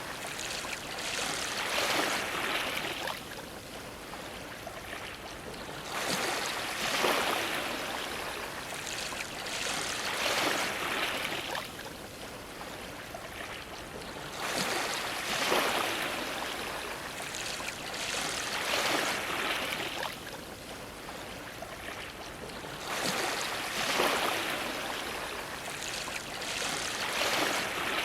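Ocean waves splashing against a dock, in repeated surges every three to five seconds with a steady wash of water between them.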